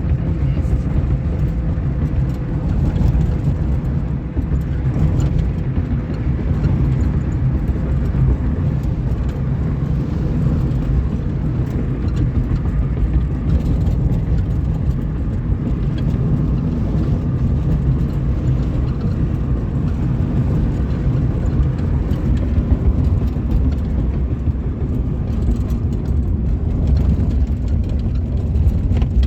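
Steady road and engine noise inside the cabin of a moving 1998 Suzuki Baleno, mostly a low, even noise.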